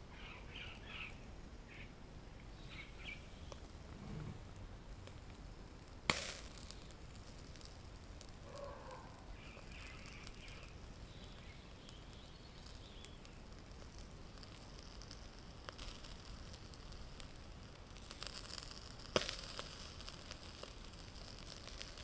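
Faint crackle of a charcoal fire in a shichirin clay grill with capelin on the wire mesh. Two sharp clicks stand out, about six seconds in and about nineteen seconds in, and a light sizzling hiss builds near the end.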